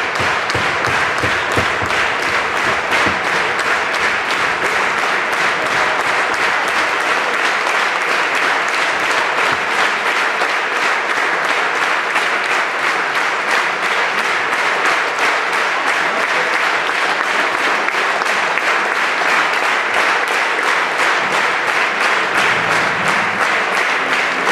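Large concert audience applauding, a dense, steady clapping that holds at an even level throughout.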